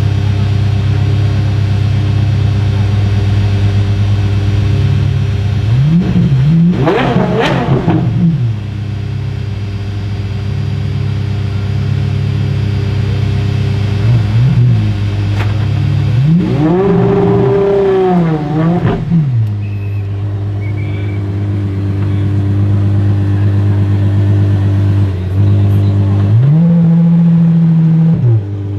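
Apollo Intensa Emozione's naturally aspirated V12 idling, revved twice: a sharp rev that rises and falls about six seconds in, then after a short blip a longer rev held for a couple of seconds around the middle. Near the end the idle steps up briefly.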